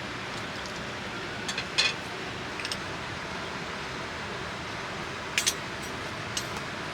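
Steady rain hiss, with a few short light clinks: a pair a little under two seconds in, one more near three seconds, a pair at about five and a half seconds, and one near the end.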